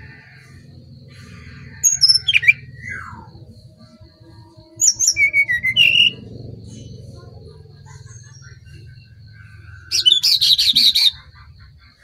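Brown-chested jungle flycatcher song: three short bursts of rapid, clear whistled notes that glide in pitch, about two, five and ten seconds in. A faint steady high tone runs underneath.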